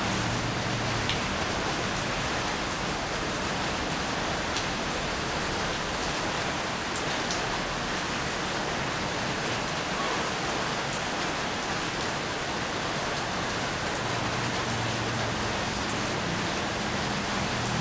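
Steady rain falling, an even hiss with now and then a single drop ticking close by.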